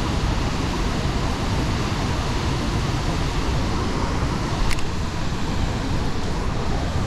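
Water rushing through the open gates of a dam spillway, a steady, loud noise of churning current, with one short click a little under five seconds in.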